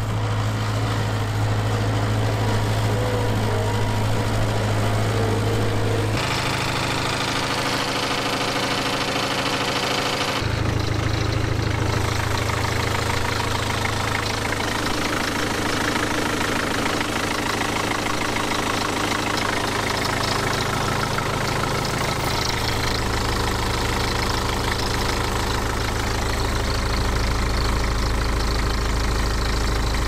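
Thomas 173HL skid steer engine running steadily. Its tone changes abruptly about six, ten and twenty-two seconds in.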